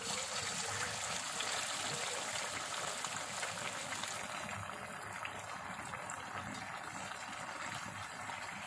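Cornflour-coated, marinated chicken pieces sizzling steadily as they deep-fry in hot oil, easing a little after about four seconds.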